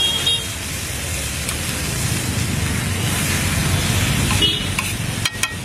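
Egg halves and chopped vegetables sizzling in oil on a flat griddle (tawa): a steady hiss.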